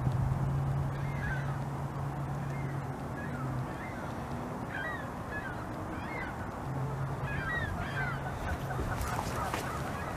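Geese honking repeatedly in short calls over a steady low hum that drops out for about three seconds in the middle, with a few sharp clicks near the end.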